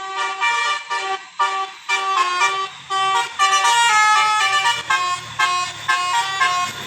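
A Basuri telolet multi-tone bus horn playing a melody of quick, short notes that step up and down in pitch.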